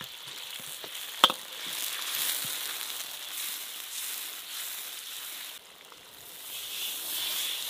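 Oil and doubanjiang chili bean paste sizzling in a hot steel wok as dried chilies, scallions and spices are tipped in and stirred with a metal ladle. A single sharp knock just over a second in stands out above the sizzle.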